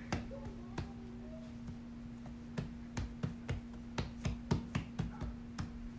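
Hands patting and pressing soft biscuit dough flat on a floured countertop: a few soft pats at first, then a quick run of about three to four pats a second in the second half.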